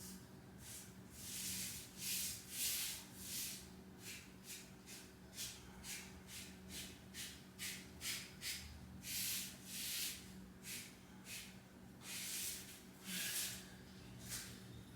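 Foam sponge applicator wiping pre-stain wood conditioner along wooden boards: a run of short, irregular swishing strokes, one to two a second, over a faint steady low hum.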